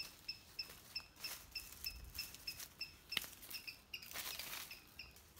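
A short, high chirp repeating evenly about three times a second, over soft rustling, with one sharp click a little after three seconds in.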